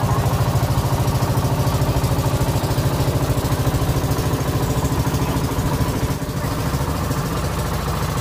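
Engine of a motorized outrigger boat running at a steady speed, a fast, even putter. It drops a little in level about six seconds in.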